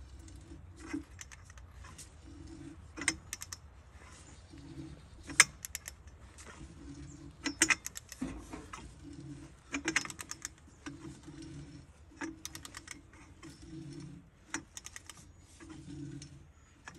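Rust-seized spark plug being forced out of an old engine head with a long cheater bar on a socket: irregular sharp metallic clicks and snaps with short creaks in between as the corroded threads give, the loudest snaps about five, seven and ten seconds in.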